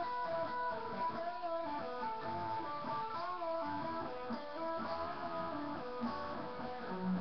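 Electric guitar played in a continuous line of changing notes, some bent or wavering in pitch.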